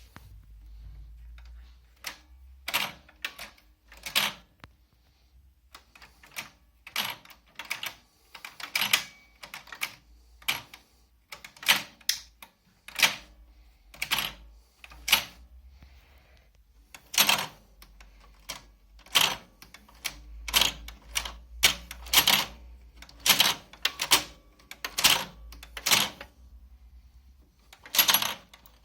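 A run of irregular sharp clicks and clacks from hard objects, about one a second and some in quick pairs. It sounds like equipment being handled, or switches and keys being pressed.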